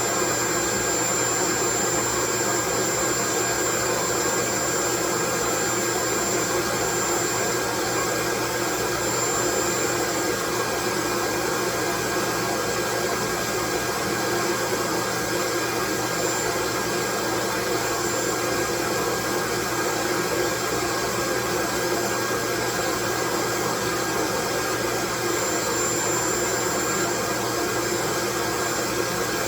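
Continuous white noise, loud and unchanging, with two faint steady high whistling tones running through it.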